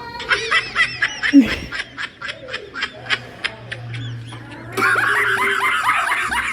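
High-pitched cartoon laugh sound effects: a rapid run of short laugh syllables, about five a second, thinning out over the first few seconds, then a louder, denser burst of laughter from about five seconds in.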